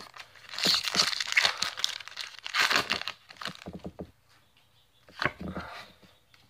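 A foil Pokémon booster pack wrapper being torn open and crinkled by hand, a dense crackling that is loudest in the first three seconds. Quieter rustles follow, with one short burst about five seconds in.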